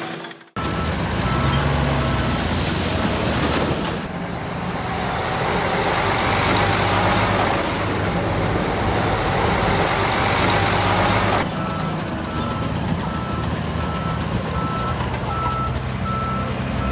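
Diesel engines of heavy earthmoving machinery running, with a reversing alarm beeping at an even pace. The beeping drops out for a louder stretch of engine and working noise in the middle, then returns.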